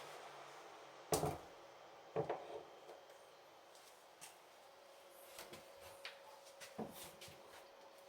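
A sharp knock about a second in and a softer second knock a second later, then a few faint ticks, in a small empty room: the kind of clunk a cupboard or door makes opening or closing.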